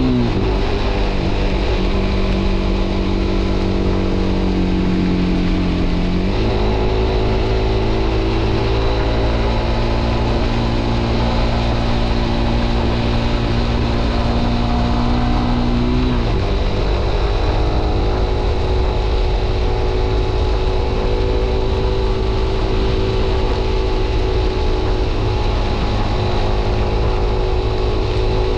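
Suzuki GSX-R125's single-cylinder engine running at road speed under a steady haze of wind and road noise. The engine note changes abruptly about six seconds in and again around sixteen seconds, and holds steady in between.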